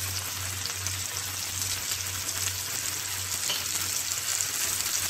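Marinated bone-in chicken pieces sizzling and crackling steadily as they pan-fry in melted butter and oil on medium flame.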